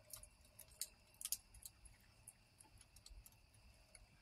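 Near silence with a few faint, sharp clicks and ticks, clustered around the first second and a half.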